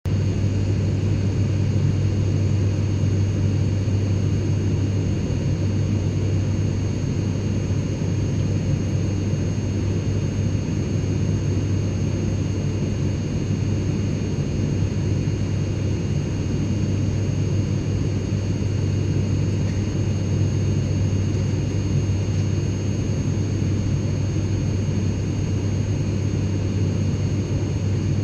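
Airliner cabin ambience: a steady, deep rumble of engine and airflow noise with a faint high whine, unchanging throughout.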